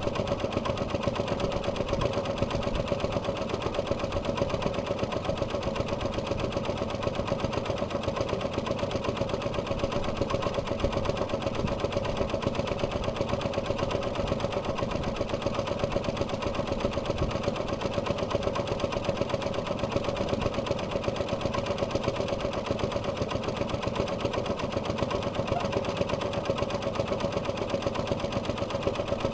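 Old single-cylinder marine engine running steadily with an even putt-putt-putt.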